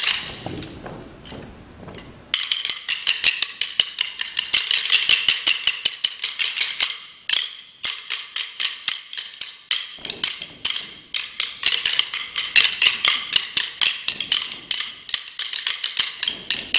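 A percussion ensemble clicking wooden drumsticks together in fast rhythmic patterns. The clicking stops for about two seconds at the start and then resumes, with short breaks around seven and ten seconds in.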